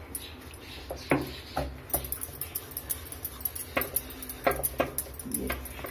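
Rolling pin clicking and knocking irregularly against the rolling board as a stuffed puri is rolled out.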